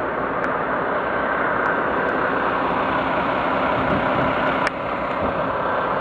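Steady engine and road noise of a car, with a single sharp click a little under five seconds in.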